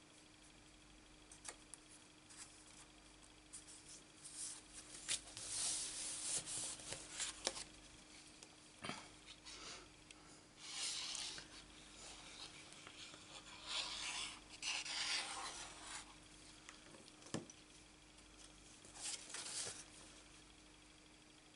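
Sheets of cardstock and patterned paper being handled, slid against each other and rubbed flat as layers are glued onto a card. The sound comes in several short scratchy rubbing spells, with a few light taps between them.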